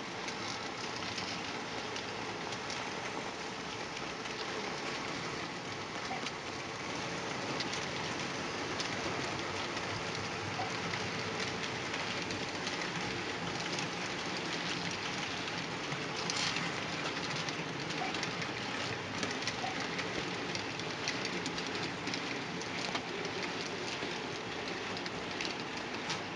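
HO-scale model track-cleaning train running along the layout: a steady rolling hiss of small wheels and cleaning pads and rollers on the rails, with a constant patter of fine clicks.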